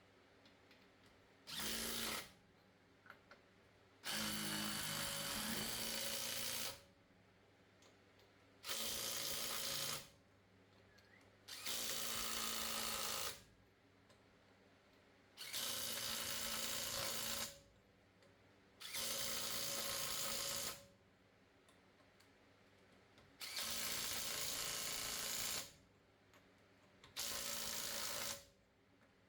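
Electric drill run in about eight short bursts of two to three seconds each, with pauses between them. It is drilling out a rounded-out brake rotor alignment screw.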